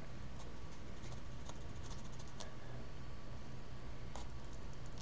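Paring knife cutting slits into a cucumber: faint, scattered small clicks and snicks, with a couple of sharper ones past the middle, over a steady low hum.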